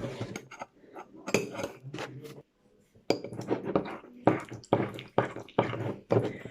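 A spoon clinking and scraping against a mug, stirring thick brownie batter: a quick run of knocks with a short break about midway.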